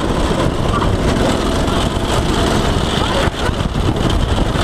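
Off-road go-kart driving over a bumpy grass trail: its small engine running under way beneath a loud, steady rush of wind and rattling from the kart.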